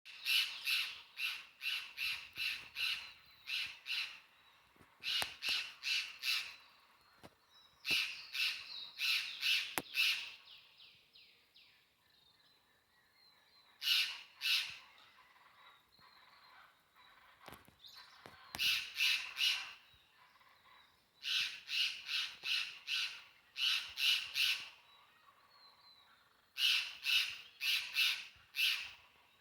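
Birds calling at dawn: bouts of loud, harsh, rapid cawing calls, several a second, break out every few seconds, with fainter calls in the lulls between.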